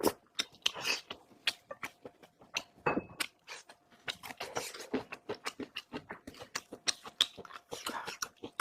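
Close-miked chewing and wet mouth smacking while eating pork, a rapid, irregular run of sticky clicks with a few louder chewing bursts.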